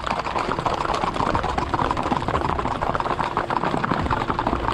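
Hooves of a group of horses, Standardbreds among them, clip-clopping together in many quick, overlapping strikes.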